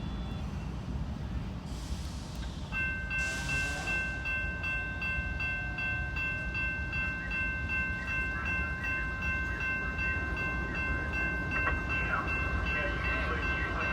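Norfolk Southern freight locomotive's air horn sounding one long chord, starting about three seconds in and held to the end, over the low rumble of the locomotive's diesel engine. Two short hissing bursts come just before and as the horn starts.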